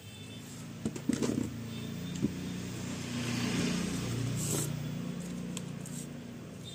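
An engine running as a vehicle passes, a low hum that grows louder toward the middle and eases off near the end. A few sharp knocks come about a second in and again a second later.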